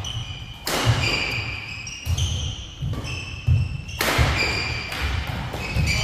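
Badminton players' feet and rubber court shoes on a wooden gym floor: low thuds throughout, with a sharp hit or squeak every second and a half to two seconds.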